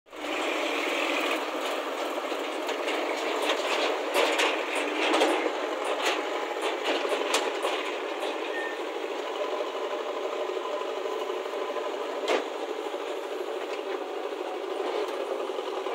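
Diesel engines of a JCB backhoe loader and a tractor running steadily, with irregular clanks and rattles as the backhoe works. The clatter is thickest a few seconds in, and there is one sharp knock past the middle.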